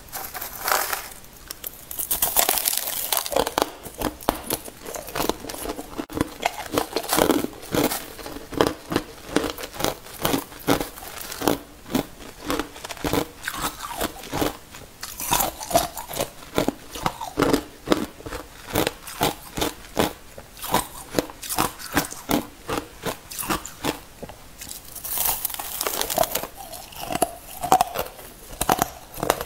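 Hard crushed 'igloo' ice being bitten and chewed: a long run of crisp, sharp crunches coming one after another. Two spells of denser crackling come a couple of seconds in and again near the end.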